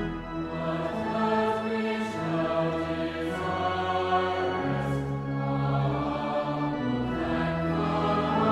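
Choir singing, holding long chords that change every second or so.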